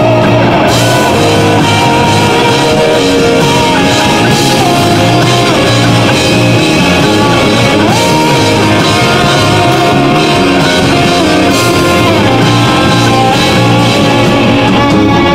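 Progressive metal band playing: distorted electric guitars with lead lines that slide between notes, over bass and a drum kit, loud and continuous.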